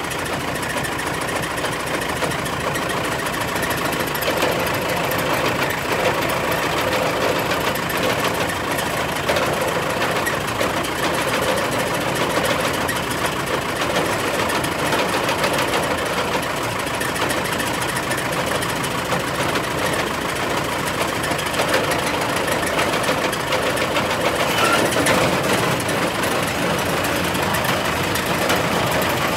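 Deutz diesel engine of a Massey-Ferguson 1843s baler running steadily, with a fast, even mechanical clatter.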